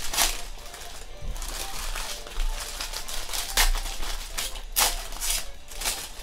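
Foil trading-card pack wrappers crinkling and tearing as they are opened by hand, in irregular bursts, the loudest about three and a half and five seconds in.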